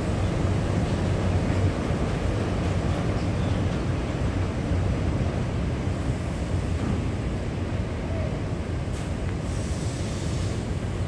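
Taipei Metro Wenhu line rubber-tyred train running, a steady low rumble that eases slightly toward the end, with a brief high hiss about nine seconds in.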